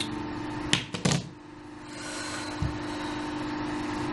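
Two sharp clicks about a second in, then a short low thud, over a steady low held drone of background score.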